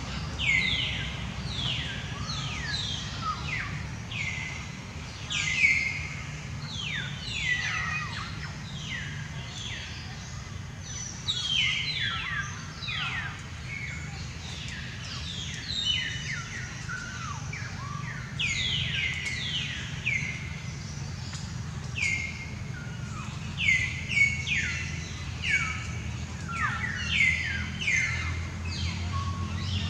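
Birds calling in forest: many short, high chirps, each falling quickly in pitch, repeated over and over in dense overlapping runs. A steady low hum lies beneath them.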